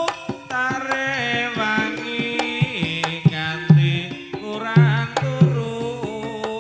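Live Javanese jaranan music: kendang hand drums striking in a busy rhythm, with low, pitched drum tones, under a melody whose notes slide and waver.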